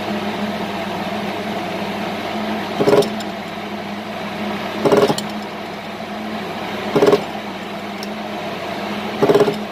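Motorcycle engine fitted with a Creampie racing muffler, running on a dyno with a steady idle, blipped briefly four times about two seconds apart.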